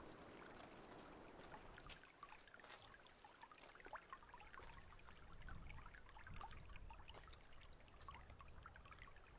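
Faint trickling of a shallow, muddy stream running over sand, with many small scattered plinks of water.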